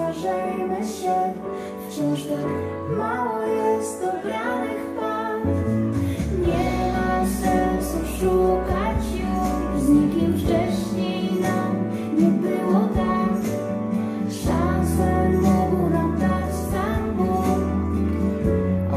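Music: a slow song sung by a woman over instrumental backing, playing on without a break.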